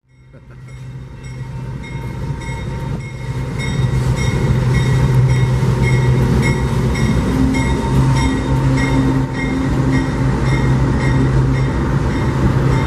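Union Pacific diesel locomotives pass close by at the head of a coal train, their engines a steady low drone that swells over the first few seconds. A bell rings about twice a second over the engine sound.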